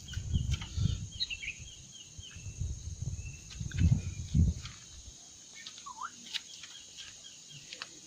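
Kutilang emas (bulbul) calls: quick runs of short high chirps, with a falling note about six seconds in. Low rumbling noise underlies the first five seconds and then drops away.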